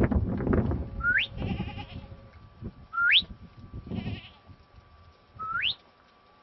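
Three short whistles, each sweeping sharply up in pitch, spaced about two seconds apart: a handler whistling to pointer dogs working the field. Wind rumble on the microphone in the first second.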